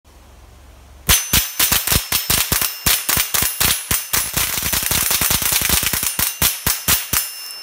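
Rapid semi-automatic .22 rimfire rifle fire: a long fast string of some thirty shots over about six seconds, starting about a second in, with a thin ringing tone that hangs on briefly after the last shot.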